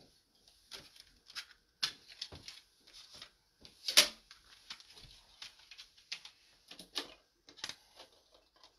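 Scattered small clicks and taps from objects being handled, with one sharper knock about four seconds in.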